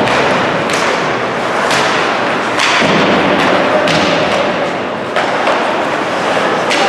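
Ice hockey game noise in a rink: a steady rushing din with several sharp thuds and clacks of puck, sticks and boards scattered through it.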